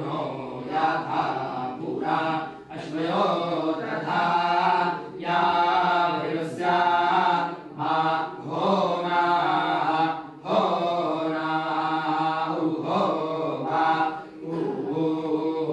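Several men chanting a scripture recitation (parayana) together, in phrases of one to two seconds broken by short pauses for breath.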